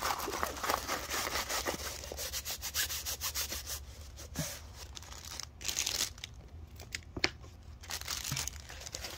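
Hands rolling up a plastic-wrapped diamond painting canvas: a string of rustling, rubbing strokes of paper and plastic, with a couple of sharp light clicks partway through.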